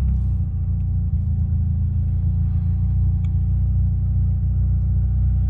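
Steady low rumble of a turbocharged Nissan Silvia S14 heard from inside the cabin while driving in traffic: engine and road noise together, with a faint steady whine above it.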